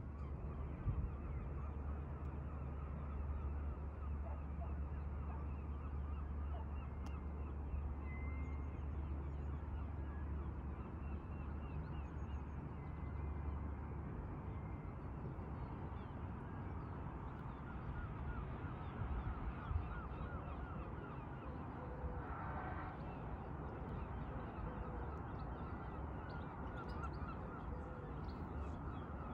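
Faint, dense calling of many birds over a steady outdoor background, with a low hum that stops about halfway through.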